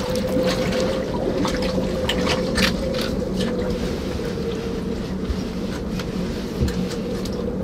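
Water sloshing and splashing in a hole cut through the ice around a diver in a dry suit, with small splashes scattered through, over a steady low hum.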